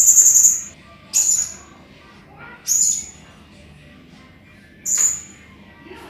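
Serindit (hanging parrot) giving sharp, very high-pitched calls: a long shrill call that ends just after the start, then three short ones spaced about one and a half to two seconds apart.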